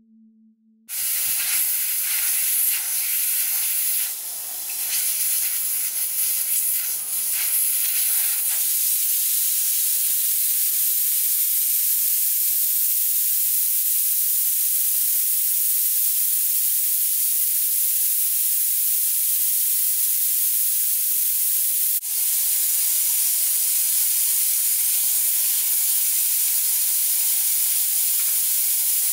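Compressed air hissing steadily and loudly, starting suddenly about a second in. About three quarters of the way through there is a short click, after which a faint low hum joins the hiss.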